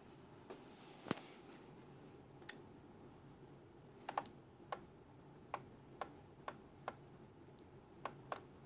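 About a dozen sharp, irregular clicks from a laptop's controls as a web page is navigated, the loudest about a second in and a quick cluster around the middle, over a faint steady hiss.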